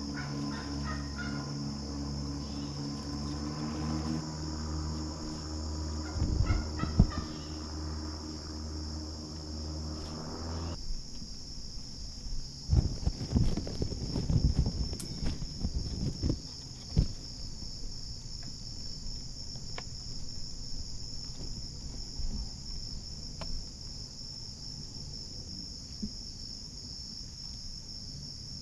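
Steady high-pitched insect chorus in a Florida swamp, constant throughout. Under it, a low hum stops abruptly about a third of the way in, and a few seconds of rustling and knocks follow in the middle.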